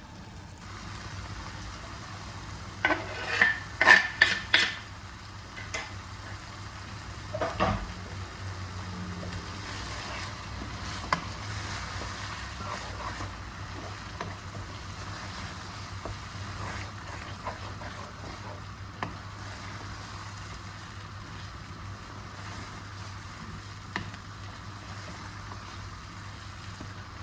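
Food sizzling in a pan while a utensil stirs it, with a burst of sharp clatter against the pan about three to five seconds in and another near eight seconds, then steady sizzling with occasional light ticks.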